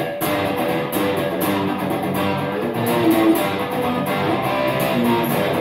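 Electric guitar playing power chords with wide, fast strumming strokes across all the strings, about four a second. The fretting hand mutes the unused strings, so only the two or three chord strings ring.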